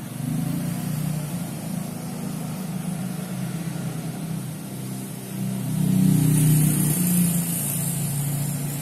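An engine running with a steady low hum, swelling louder about five and a half seconds in, then easing off.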